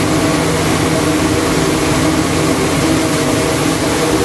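Stainless-steel gas-and-charcoal pig-roasting oven (LT_110S) running on its trial firing: a steady, loud drone with a low hum through it.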